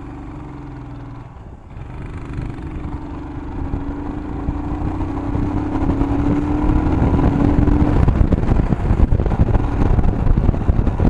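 Motorcycle engine accelerating away, with a brief dip about a second and a half in and then a slowly rising note, while wind rush grows louder as the bike gathers speed.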